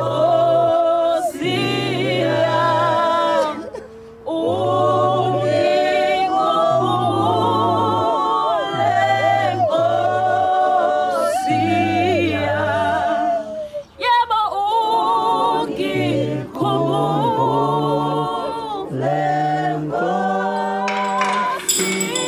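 A cappella choir singing a slow hymn in Zulu, several voices holding notes with vibrato over a low bass line, phrase by phrase with short breaths between.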